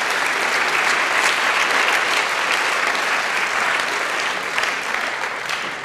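Audience applauding in a large hall, steady and then tapering off near the end.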